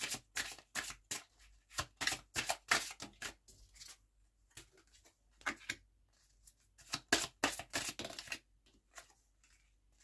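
A deck of oracle cards being shuffled by hand: runs of quick card slaps and flicks, with a short pause around the middle.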